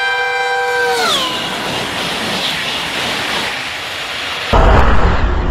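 High-speed electric train sounding its horn, a held chord of several notes that slides down in pitch about a second in. The rush of the approaching train grows after it. About four and a half seconds in it cuts abruptly to a much louder low rumble of a train passing close.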